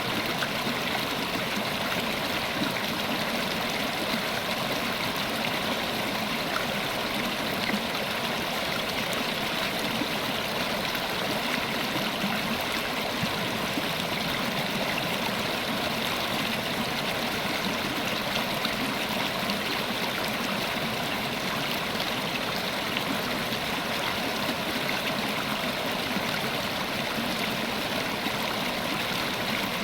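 River water running steadily over rocks, a continuous even rush with fine gurgling and no pauses.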